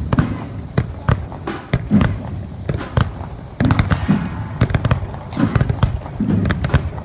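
A rapid, irregular string of sharp bangs and cracks, several a second, over a low rumble.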